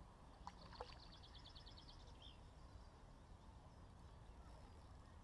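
Near silence: faint outdoor ambience with a low steady rumble. About a second in comes a short, high, rapid trill of a small bird, just after a couple of faint clicks.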